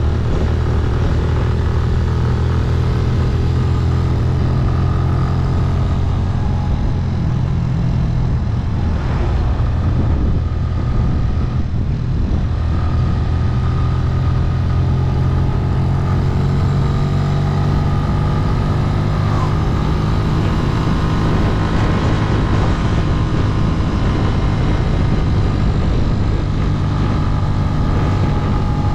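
Motorcycle engine running steadily under way, its note shifting slightly about a third of the way in.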